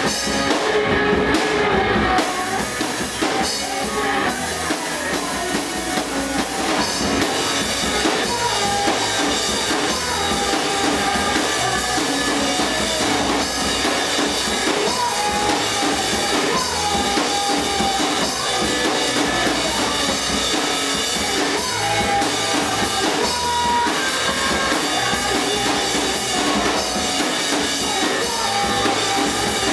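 A rock band playing live in a room: drum kit and electric guitar, loud and continuous.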